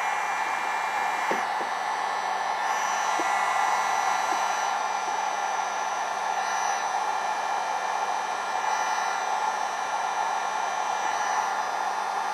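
Electric heat gun blowing steadily: a rush of hot air with a faint motor whine. It is heating the battery's high-temperature switch to trip the BMS over-temperature cutoff.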